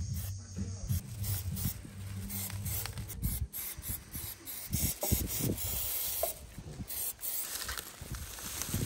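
Aerosol spray paint can hissing as coats of paint are sprayed onto a vehicle's plastic grille badge, with a few short breaks between passes.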